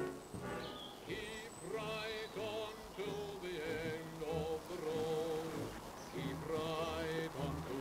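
Background music: a melody whose notes waver with a strong vibrato, over a steady lower accompaniment.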